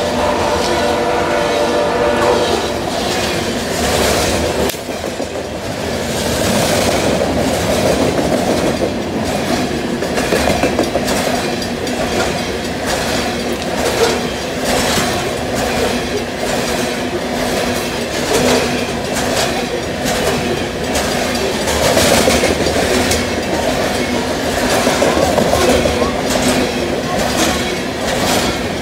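Loaded coal hopper cars rolling past, their steel wheels clattering over the rail joints in a steady rhythm. A train horn sounds under the clatter until about two and a half seconds in.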